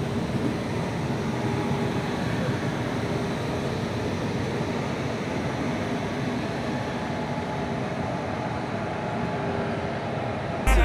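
Steady running noise of an Indian Railways express train heard from on board as it rolls through a rail yard: an even rumble of wheels on track with a faint hum.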